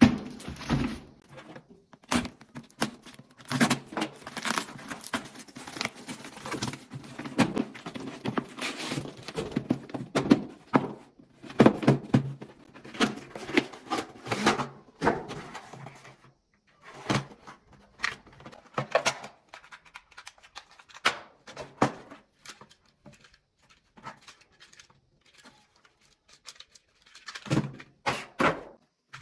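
Packaging being opened and handled by hand: irregular tearing, crinkling and rustling with scattered knocks, dense at first and then sparser from about halfway through.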